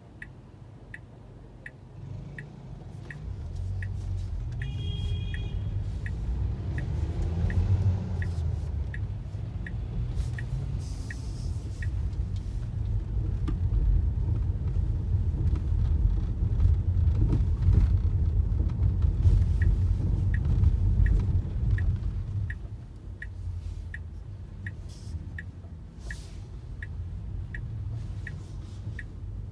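Low road and engine rumble of a moving car heard from inside the cabin, swelling in the middle and easing off near the end, with a steady light ticking nearly twice a second throughout and a short beep about five seconds in.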